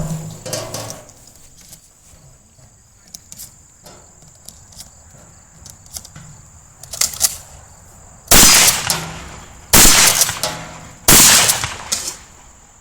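Shotgun firing three shots about a second and a half apart in the last five seconds, each with a short fading echo; a few faint clicks and knocks come before.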